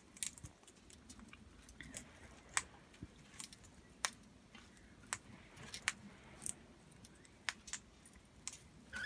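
Australian king parrot eating from a hand-held offering, its beak making faint, irregular sharp clicks and cracks, a couple a second.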